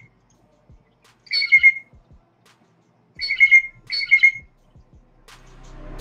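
Blue jay giving three harsh jay calls, about a second and a half apart, with the last two close together.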